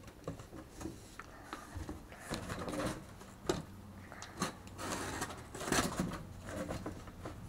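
Cardboard box being cut, with irregular scraping strokes and short knocks, louder about halfway through.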